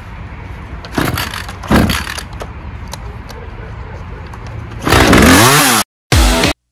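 Two-stroke chainsaw being pull-started: two short yanks of the starter cord about a second in, then about five seconds in the engine fires and revs up loudly, its pitch rising, before cutting off abruptly.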